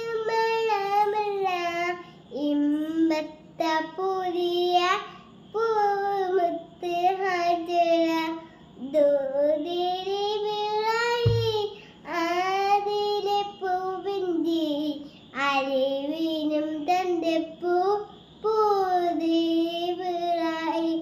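A young girl singing a Malayalam song unaccompanied, in short melodic phrases with brief pauses for breath between them. There is a short low thump about eleven seconds in.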